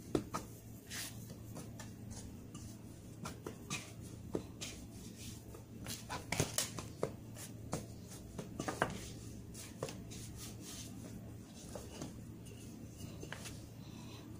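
Hands kneading and patting a piece of yeast dough on a floured board: scattered soft taps and pats at irregular intervals. A low steady hum runs underneath and cuts off about three-quarters of the way through.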